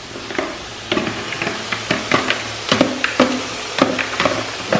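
A plastic spoon scraping chopped spinach out of a plastic container into a steel pot, knocking against the container and the pot's rim in irregular clicks several times a second, over a steady low hum.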